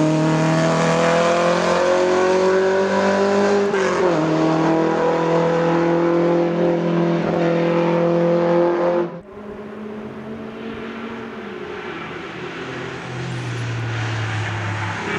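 A 1975 Opel Manta A's engine accelerating up the hill, its note climbing steadily with a gear change about four seconds in, breaks off abruptly about nine seconds in. Then a 1989 Porsche 911 Carrera 4's flat-six is heard approaching, getting louder near the end.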